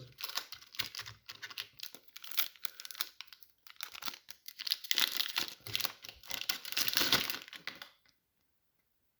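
Dragon Ball Z trading card booster pack wrapper being torn open and crinkled, a rapid crackle of many small clicks that stops about eight seconds in.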